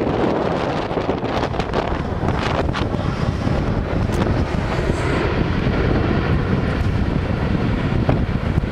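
Strong wind buffeting the microphone over the steady rumble of jet aircraft, with a few scattered knocks from the wind on the mic.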